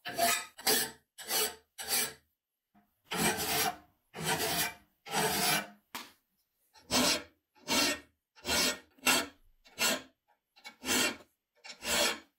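Hand file stroking across the cast iron frame of a 1920s potato peeler, about thirteen separate strokes, smoothing casting defects. The strokes come quick and short at first, grow longer and slower around the middle, then quicken again near the end.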